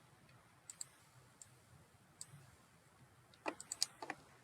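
Scattered clicks of a computer mouse and keyboard: a few single clicks in the first half, then a quick run of about half a dozen louder clicks near the end.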